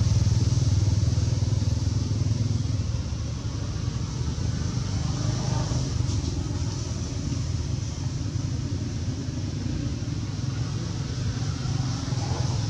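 Steady low rumble of a motor vehicle engine running nearby, easing slightly a few seconds in.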